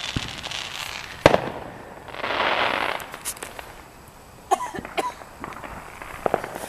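Fireworks going off: one sharp bang about a second in, then a hissing rush lasting about a second, then scattered pops and crackles.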